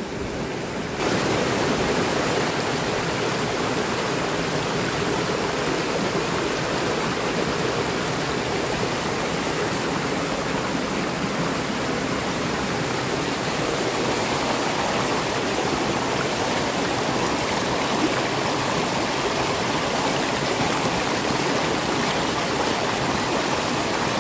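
Water running and splashing over rocks in a small mountain stream, a steady rush that gets louder about a second in.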